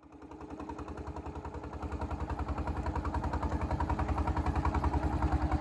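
A small boat's engine running with a fast, even chugging beat, growing louder over the first two seconds and then holding steady.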